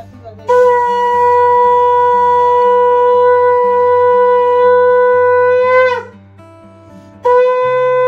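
Conch shell (shankha) blown in two long, steady blasts. The first holds for about five seconds, then wavers and breaks off. The second starts about seven seconds in.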